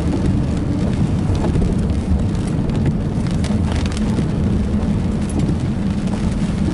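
Rain hitting a car's windshield in scattered ticks over the steady low rumble of the car driving on a wet road, heard from inside the car.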